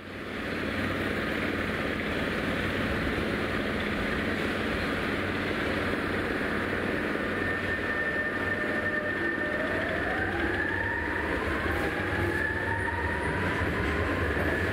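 Shanghai Metro Line 2 electric train pulling out of the platform, a steady rumble of wheels and running gear. From about nine seconds in the motors' whine climbs in pitch as the train picks up speed.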